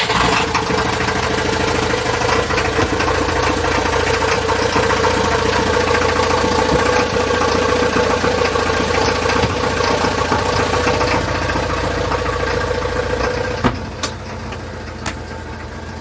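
Yacht's inboard engine running steadily just after starting. It has a leaking head gasket and is being run up to temperature with ground pepper in its cooling water as a makeshift sealant. Near the end a knock, after which it sounds quieter.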